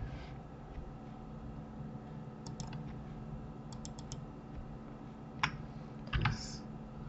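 Computer mouse and keyboard clicks: a few scattered clicks, with a quick run of four about four seconds in, over a steady low hum.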